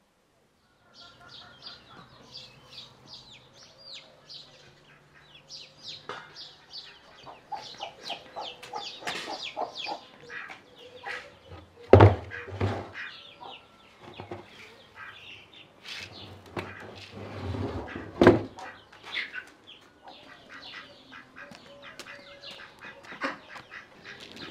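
Birds calling: fowl clucking and small birds chirping in quick runs of short calls, with two loud sharp knocks, one about halfway and one about three-quarters of the way through.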